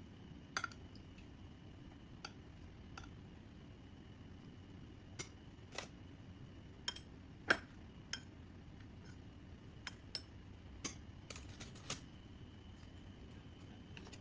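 Scattered clinks and knocks of kitchen utensils and dishes, about a dozen irregular strikes, the loudest a little past halfway, over a faint steady background hum.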